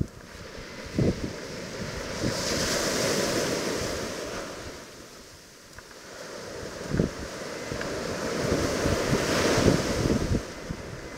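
Sea surf breaking and washing up a sand beach, swelling twice about six seconds apart, with gusts of wind buffeting the microphone.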